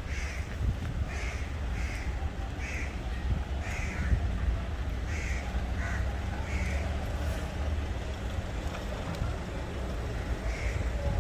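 A crow cawing in a string of short calls, one every half second to a second for about the first seven seconds, then once more near the end, over a steady low rumble.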